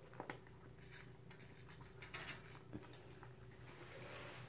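Toy poodle eating from a plastic bowl: faint, scattered clicks and crunches of food and the bowl as it eats.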